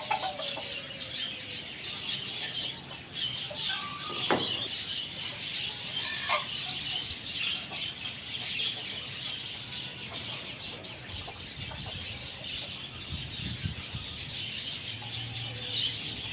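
Chicks and chickens in rooftop coops: a continuous chorus of high chick peeping, with occasional clucking.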